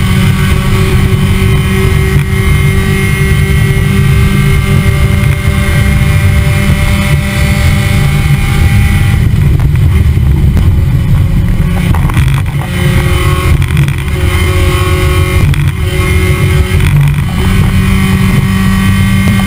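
Mazda Miata race car's four-cylinder engine running hard at high revs, with wind rushing past. The engine note shifts about halfway through and again a few seconds later.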